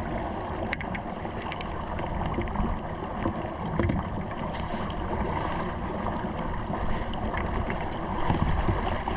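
Water lapping and splashing against a kayak hull, with scattered light clicks and knocks.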